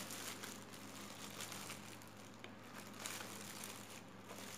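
Clear plastic wrapping crinkling faintly as hands handle and unwrap a small clock from it.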